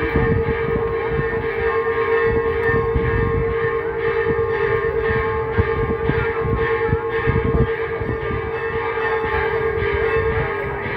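Church bells rung rapidly in a continuous peal, several strokes a second, their tones running together into a steady ring over a low rumbling background.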